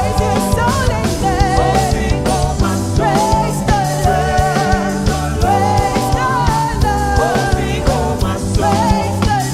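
Live praise-and-worship music with a steady drum beat, bass and a sung melody.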